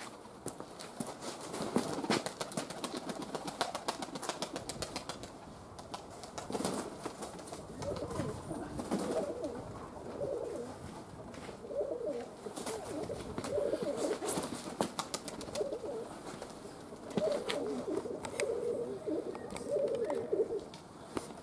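Domestic pigeons cooing close by in repeated warbling phrases from about six seconds in, with a run of sharp clicks and rustles in the first few seconds.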